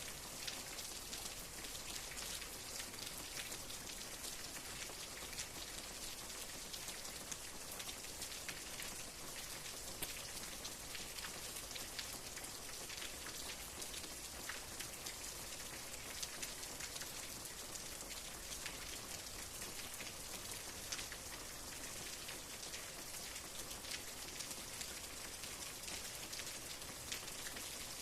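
Steady rain, with a dense patter of individual drops ticking on a surface.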